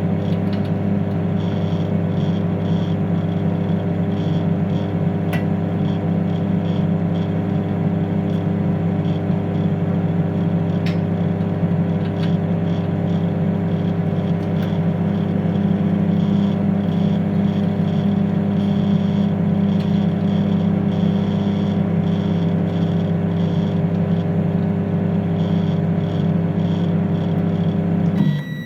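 Microwave oven running with a steady electrical hum, which cuts off abruptly just before the end.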